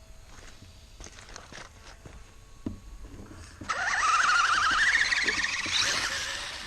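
RC mud truck's electric motor revving hard about three and a half seconds in: a wavering whine that rises in pitch over a loud hiss of spinning tyres churning mud, easing off near the end.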